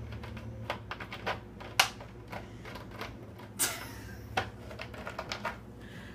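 Irregular clicks and knocks of a plastic 2-liter bottle being handled in a stainless-steel sink, with a brief hiss a little past halfway.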